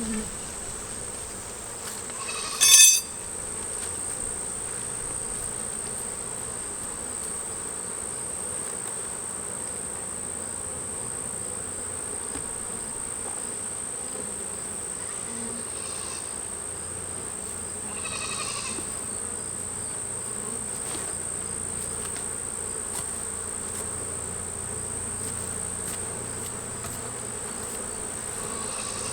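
Buckfast honeybees buzzing steadily around an open hive, a calm hum rather than an angry buzz, with a steady high tone beneath it. A brief loud clatter about three seconds in, and two fainter ones later, from the hive parts being handled.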